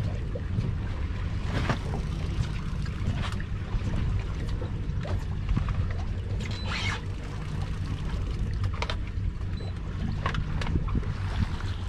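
A boat's engine running steadily as a low hum, with wind on the microphone and scattered short splashy bursts of noise.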